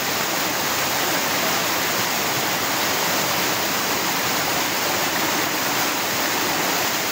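Small waterfall cascading over rocks into a shallow stream pool: a steady rush of water.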